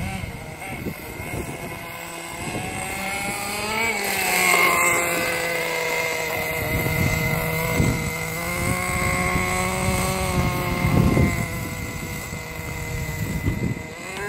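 Radio-controlled drift car's motor whining, its pitch rising and falling with the throttle as the car slides around on concrete. The pitch climbs sharply about four seconds in and again near the end.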